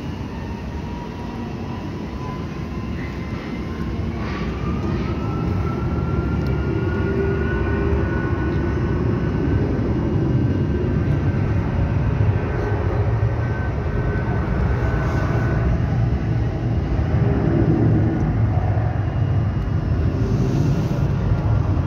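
Boeing 757-300 jet engines at takeoff power as the airliner accelerates down the runway. A thin whine rises in pitch over the first several seconds and then holds steady, over a low jet rumble that grows louder throughout.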